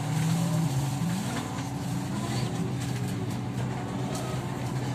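Kyiv-12.03 trolleybus running, heard from inside the cabin: a steady hum from the electric drive whose pitch rises a little about a second in, over rolling noise and a few light knocks and rattles.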